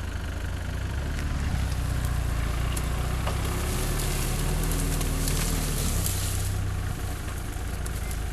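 Off-road SUV engine working under load through muddy ruts, revving up about a second in, holding, and easing off around six seconds in, with a few sharp knocks and bursts of hiss.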